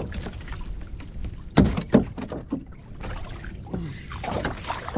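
Handling knocks on a fishing kayak while a hooked fish is being played, over a steady rumble of wind and water. Two loud knocks come close together about a second and a half to two seconds in, with smaller bumps after.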